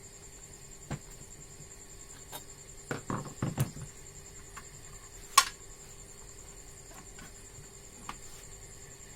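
Small clicks and knocks of hand tools and hardware being handled while a nut is tightened on an inverter's parts: a short cluster of knocks about three seconds in and one sharp click about five seconds in.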